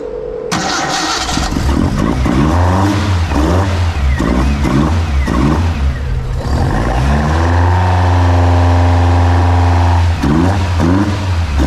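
Datsun 1200's four-cylinder engine comes in loudly about half a second in and is revved in repeated rising and falling blips, held at higher revs for a couple of seconds, then blipped again. It is running on a barely set-up base map of its newly fitted fuel injection.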